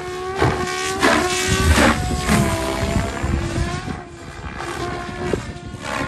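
Electric RC helicopter in flight: a steady motor and rotor whine whose pitch bends as it manoeuvres, with repeated swells of rotor noise.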